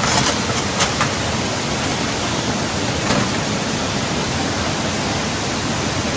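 Fast-flowing floodwater rushing down a street, a steady loud noise, with a few brief knocks in the first second and again about three seconds in.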